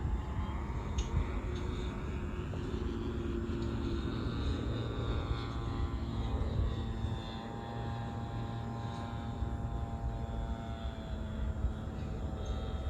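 Radio-controlled F3A aerobatic model airplane in flight, its motor and propeller whine slowly rising and falling in pitch through the manoeuvres, over a low rumble.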